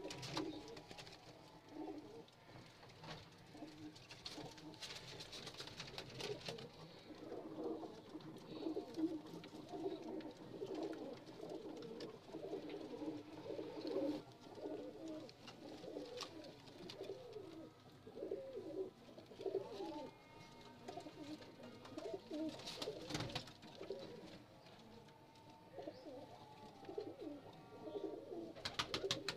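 Rampuri highflyer pigeons cooing over and over in short, repeated calls, with a few sharp clicks near the end.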